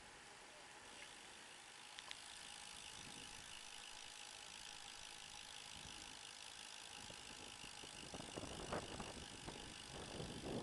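Road bike rolling on asphalt: a faint steady whir of tyres and drivetrain, with a single click about two seconds in. From about eight seconds in, wind buffets the microphone more and more loudly.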